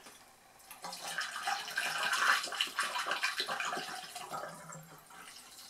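Acetone poured from a bottle into a glass funnel, gurgling and splashing as it runs down a glass condenser tube. It starts about a second in and tapers off near the end.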